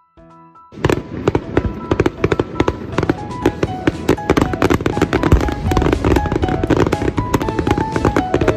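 Aerial fireworks bursting, with dense rapid crackling and popping that starts about a second in and keeps up. Music with a stepping melody plays throughout.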